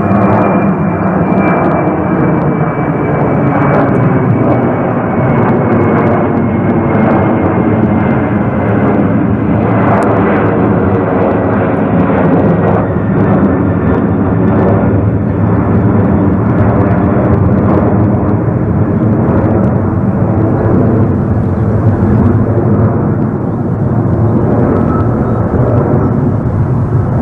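Boeing 767-300ER jet engines running loud and steady, with a high whine slowly falling in pitch.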